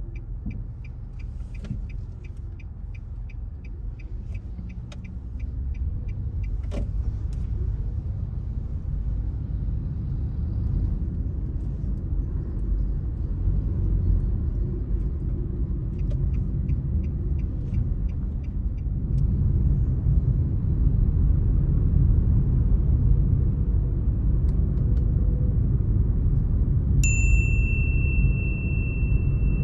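A car driving, a steady low rumble of engine and tyre noise that grows louder twice along the way. Regular light ticking comes in two stretches, and a steady high-pitched beep starts suddenly near the end.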